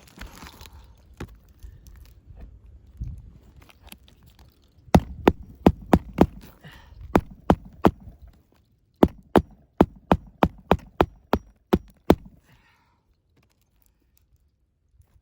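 Hammer knocks on a shingle roof: two quick runs of sharp strikes, about three a second, starting about five seconds in and again about nine seconds in, with faint scraping before them.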